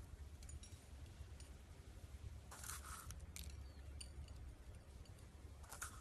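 Slime being handled, faint: a couple of short crackly squishes and scattered small clicks and pops.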